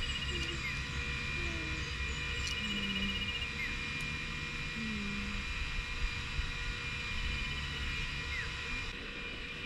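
Rural outdoor ambience: a steady high-pitched drone with a few short bird chirps over a low, uneven rumble.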